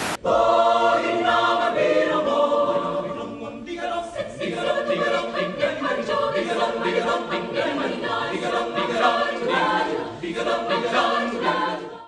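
Music of a choir singing, with several voices together. It starts suddenly just after the beginning and cuts off abruptly at the end.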